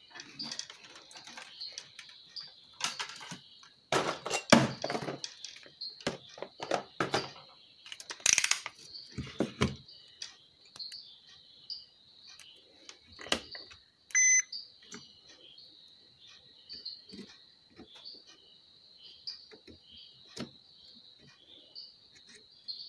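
Clicks and knocks of a digital multimeter and its probe leads being handled on a workbench while diodes on an amplifier board are checked, with one short electronic beep about 14 seconds in. Crickets chirp steadily underneath.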